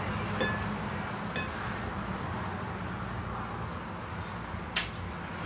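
Eggs being cracked over a glass mixing bowl: two light taps with a brief glassy ring about half a second and a second and a half in, then one sharp click near the end, the loudest sound, over a steady low hum.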